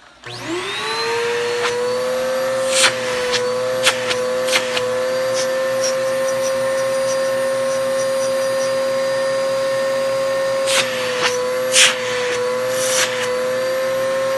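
Bissell PowerForce Bagless upright vacuum cleaner switched on for use with its attachment tools: the motor spins up within about half a second to a steady whine. A few sharp knocks sound over it, a cluster around three to five seconds in and more near the end.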